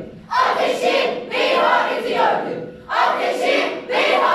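A chorus of young voices chanting a line loudly in unison, twice over.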